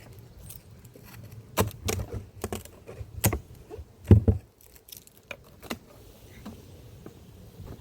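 A series of sharp clicks and knocks from wooden or plastic beehive parts being handled as a hive is opened, bunched in the middle of the stretch with the loudest, a double knock, a little past the halfway point.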